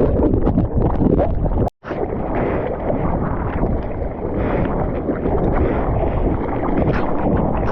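Wind buffeting the microphone over the wash of hurricane-swell ocean surf, a steady rough noise. The sound cuts out for an instant about two seconds in.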